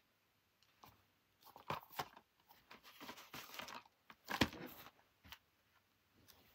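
Plastic DVD case being handled: scattered clicks and rustling, with the sharpest knock about four and a half seconds in as the case is set down on a blanket.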